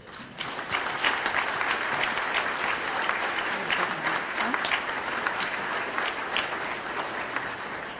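Audience applauding: many hands clapping in a steady patter that eases slightly near the end.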